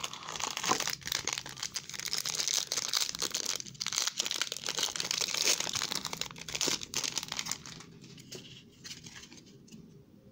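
Foil trading-card pack wrapper crinkling and tearing as it is opened and the cards are pulled out. The crinkling is dense for about seven seconds, then dies down to faint rustles.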